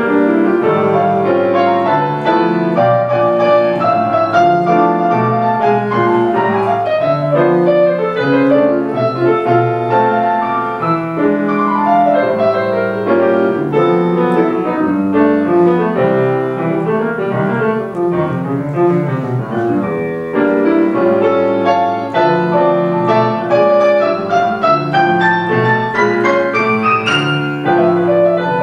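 Grand piano played solo: flowing chords and melody, with a quick rising run a couple of seconds before the end.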